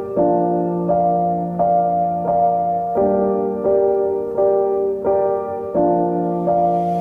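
Background music: a gentle piano melody with evenly paced notes, about three every two seconds.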